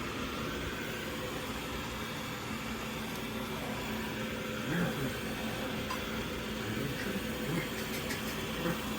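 AIRROBO T20+ robot vacuum running with a steady, even whir of its suction motor and brushes.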